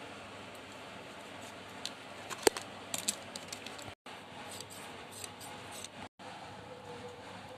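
Small clicks and taps of school supplies and packaging being handled, with one sharp click about two and a half seconds in and a few more just after, over a steady hiss.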